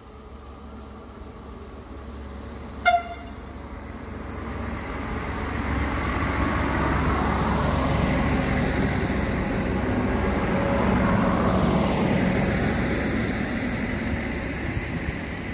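SNCF X 73500 diesel railcar giving one short horn toot about three seconds in as it approaches, then its engine and wheels on the rails grow louder as it passes close by and slowly fade as it moves off.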